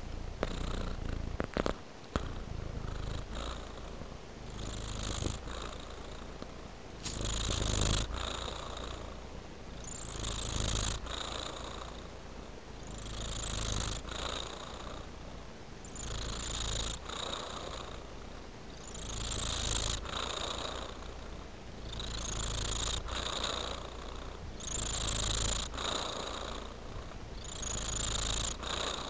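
Tabby-and-white domestic cat purring steadily while lying relaxed, the purr swelling and easing about every three seconds.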